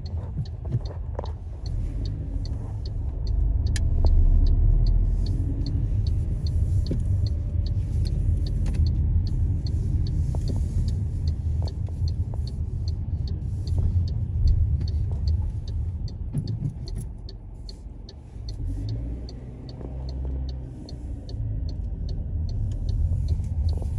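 Steady low rumble of road and engine noise inside a moving car, with light ticks over it through much of the time. It grows quieter for a few seconds about three-quarters of the way in.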